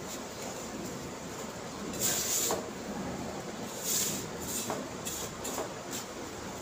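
Hand mixing flour with tomato purée into dough in a stainless steel bowl: soft scraping and rustling over a steady hiss, with two louder swishes about two and four seconds in.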